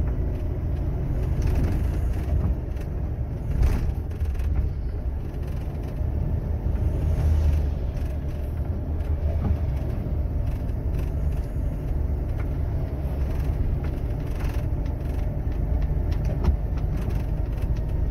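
Steady low rumble of a truck's engine and road noise heard inside the cab while driving on a wet road, with a few brief knocks and rattles.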